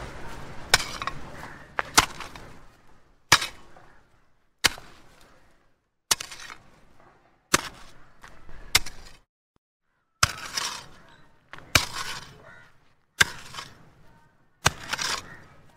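Cartoon sound effect of a shovel digging, looped: a sharp strike with a short fading scatter, repeated about every second and a half, about a dozen times.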